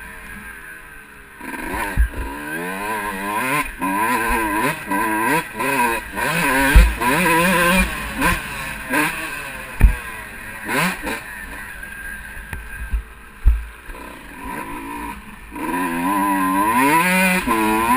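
Kawasaki KX125 two-stroke single-cylinder engine revving hard and backing off again and again, its pitch sweeping up and falling as the throttle is worked through the gears. It is quiet for the first second or so and again for a stretch past the middle. Several sharp low thumps cut in, about four of them.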